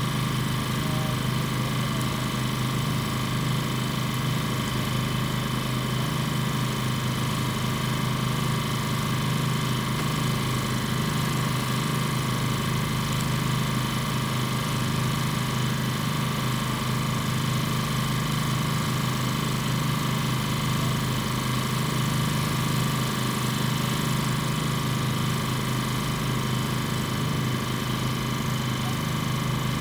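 An engine idling steadily: a constant low hum that keeps the same pitch and level throughout.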